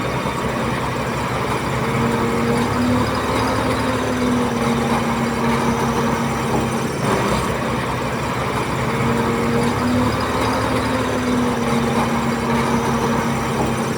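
Heavy diesel engine of earthmoving machinery running steadily under load, with a held engine tone that wavers slightly in pitch.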